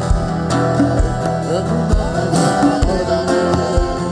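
Live worship band music: sustained keyboard chords over a steady low drum beat about once a second, with a voice singing over it.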